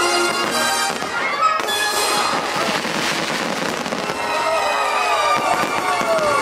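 Aerial fireworks bursting and crackling over the show's orchestral music, with one sharp bang about one and a half seconds in.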